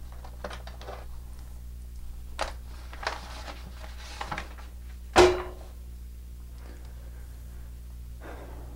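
Handling noises: scattered light clicks, a few short knocks, and one louder knock about five seconds in, over a steady low hum.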